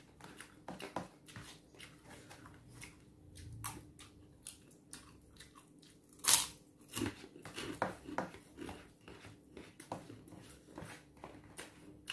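Close-miked eating: biting and chewing with many small wet clicks. The sharpest bite comes about six seconds in.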